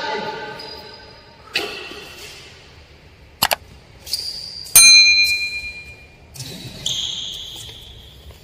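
Subscribe-button sound effect: two quick mouse clicks, then bright bell-like dings that ring on for about a second, with another ding near seven seconds in. A single knock comes about one and a half seconds in.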